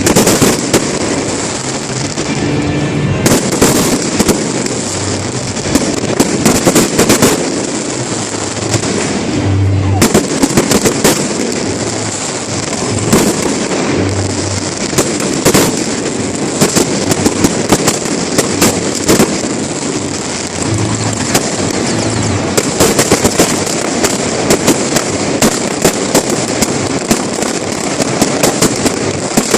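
Fireworks bursting and crackling in rapid, continuous volleys, with music playing underneath.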